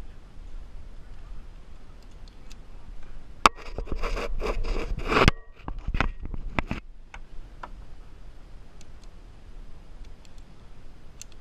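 Metal carabiners and harness gear being handled close to the microphone: a sharp click, then about two seconds of rattling clicks and scraping ending in a snap, with a few lighter clicks after.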